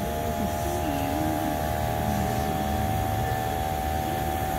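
Steady machine hum made of several constant tones over a low rumble, holding level throughout.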